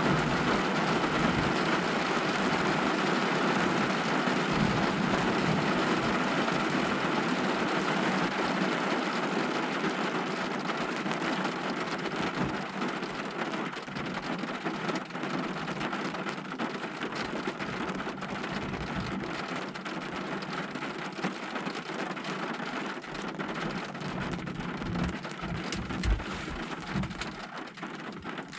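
Heavy rain pouring down, easing gradually, with single drops tapping more distinctly in the second half.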